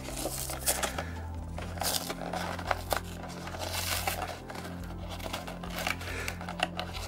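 Crinkling and scattered crackles of cardboard and plastic packaging as fingers pick at the taped flap of an action-figure window box, over a low steady hum.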